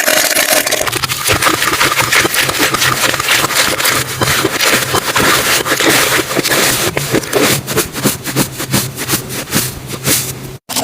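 Slime being squished and worked by hand, a dense run of small clicks and crackles that stops suddenly near the end.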